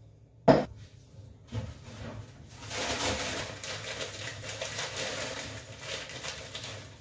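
A sharp knock about half a second in, then a plastic bag of frozen raspberries rustling for several seconds as the berries are tipped and spooned into a bowl of oatmeal.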